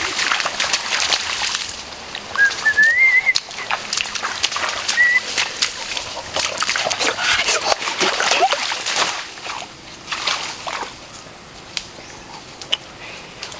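Bare feet splashing and sloshing through shallow muddy water, with twigs and leaves crackling among many sharp little clicks. A short rising squeaky call is heard twice in the first few seconds, and the splashing dies down after about nine seconds.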